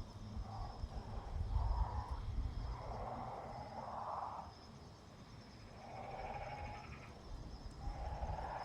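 Outdoor ambience at a bird's nest: insects chirring steadily and high over a low rumble, with short soft hushing sounds coming every second or so and pausing briefly around the middle.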